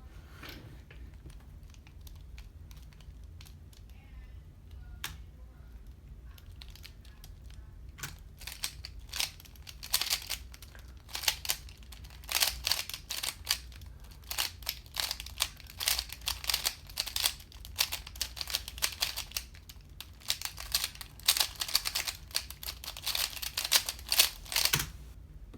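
A 3x3 speedcube being turned fast during a solve: a dense run of quick plastic clicks and clacks from its layers. They start sparsely about eight seconds in, get busy from about ten seconds, and stop abruptly near the end as the solve finishes.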